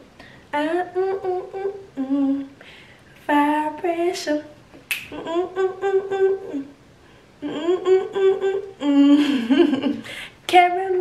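A woman humming a tune in held, sung phrases, with a couple of sharp clicks along the way.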